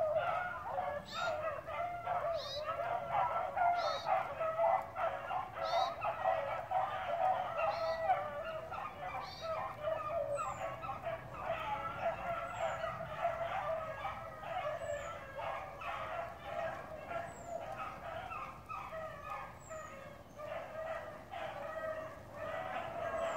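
Pack of bear hounds baying together: a continuous chorus of many overlapping voices that wavers in pitch and never breaks.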